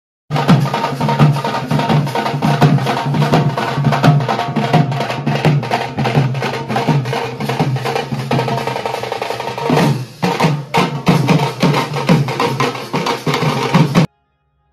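Loud, fast drumming with many rapid strikes and a heavy low beat. It starts abruptly just after the start, dips briefly about two-thirds of the way through, and cuts off sharply near the end.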